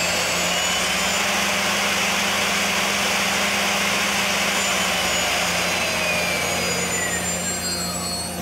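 Mazak Integrex 300-IIIS CNC lathe spindle running at speed with a high whine and a rushing hiss. It reaches top speed about a second in, holds, then winds down with a falling whine over the last three seconds, over a steady low machine hum.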